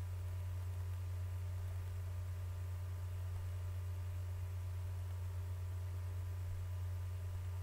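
A steady low hum with fainter steady tones above it, unchanging throughout, and no other sound.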